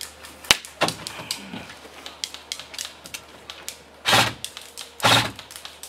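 Airsoft electric rifles firing: a sharp shot about half a second in, scattered light clicks, then two short bursts of fire about a second apart near the end.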